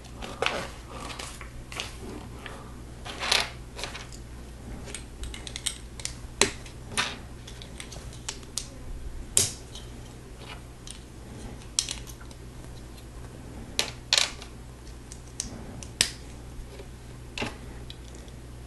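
Plastic Lego bricks and plates being handled and snapped together: sharp clicks at irregular intervals, over a faint steady low hum.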